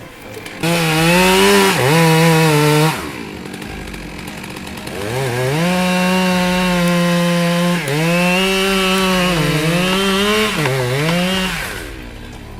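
Chainsaw engine running at high revs in two long bursts, the first from about half a second in to about three seconds, the second from about five seconds in to near the end. The pitch holds steady but dips briefly several times in the second burst.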